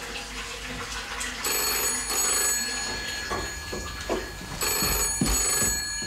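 Telephone bell ringing twice, each ring a burst of about a second and a half, the second coming about three seconds after the first.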